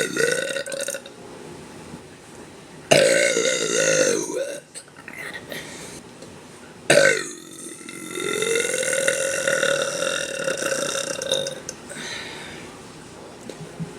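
A woman's loud, drawn-out burps. The first ends about a second in, another comes about three seconds in and lasts over a second, and a long one starts about seven seconds in and holds a steady pitch for some four seconds.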